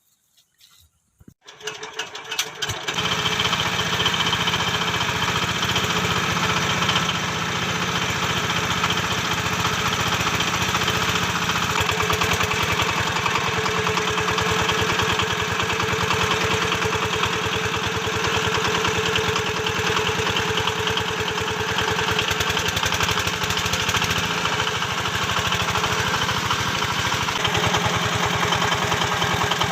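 The engine of a home-built water-well drilling rig starting about two seconds in, then running steadily.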